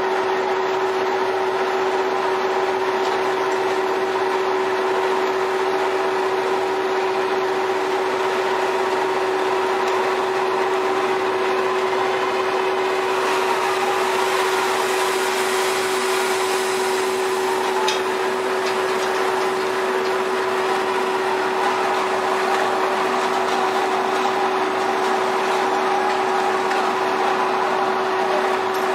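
Steady machinery drone of a tuna purse-seine fishing vessel, a constant hum that holds one pitch throughout. About halfway through, a rush of water joins it for a few seconds as a brailer net full of fish is hoisted and drains.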